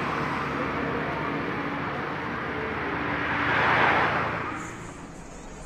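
Road traffic: a steady engine hum and a vehicle passing close by, its rushing noise swelling to a peak about four seconds in and then fading. Near the end the sound drops suddenly to a quieter background.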